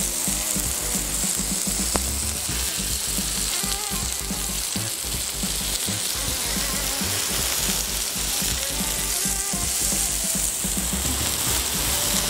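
Bacon-wrapped meat rolls sizzling steadily on a hot steel fire-plate grill (Feuerplatte).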